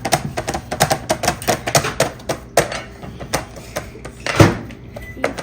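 Rapid, irregular tapping and knocking on a hard surface, several sharp knocks a second, with one heavier thump about four seconds in.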